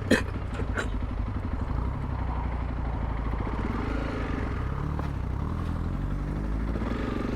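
Honda CRF300 Rally's single-cylinder engine running as the motorcycle rides off, a steady engine note that rises and falls slightly. Two sharp clicks come in the first second.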